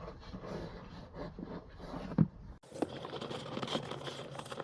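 Faint rustling and light knocks of a dash cam cable being pushed into a car's interior trim panels, with one sharper tap about two seconds in.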